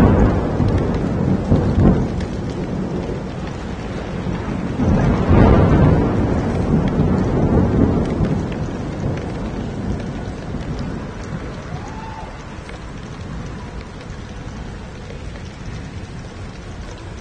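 Heavy rain falling steadily on a city street with rolling thunder: a rumble dies away at the start, then another peal about five seconds in rolls on and fades, leaving the rain, which grows quieter over the last several seconds.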